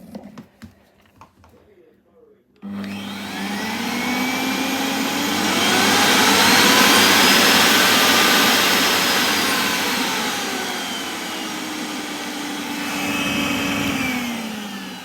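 Miele Revolution 5000 vacuum cleaner motor switching on after a few light clicks, about two and a half seconds in. Its pitch climbs as it speeds up, falls back, rises briefly again near the end and drops away, with a steady mains hum underneath.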